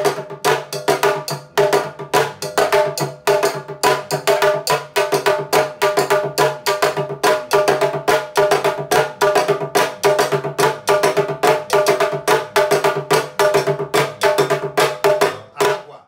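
Afro-Brazilian candomblé ketu percussion: a drum struck with thin wooden sticks, together with a hand-held bell, playing a fast, dense rhythmic pattern.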